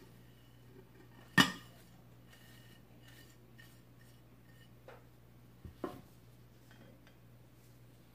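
Ceramic dishes clinking: a sharp clink with a short ring about a second and a half in as a plate knocks the rim of a ceramic bowl while ground spices are tipped into olive oil, then two fainter knocks later on.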